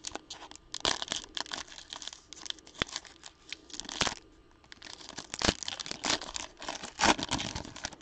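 Foil wrapper of a Panini Flux basketball card pack being torn open and crinkled by hand: an irregular run of crackles and rips.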